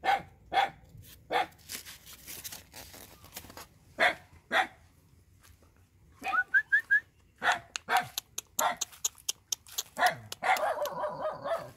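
Puppies yipping: many short, sharp, high barks spread throughout, with a quick run of rising whimpers about six seconds in and a denser stretch of whining near the end.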